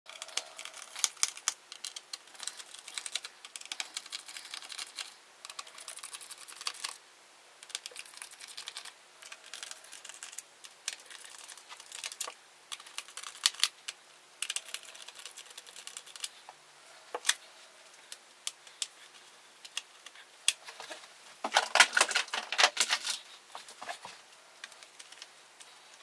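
Small screwdriver clicking and scraping in the screws of a ThinkPad X1 Carbon laptop's bottom cover, in quick irregular ticks, with a louder burst of clicking and rattling lasting about two seconds near the end.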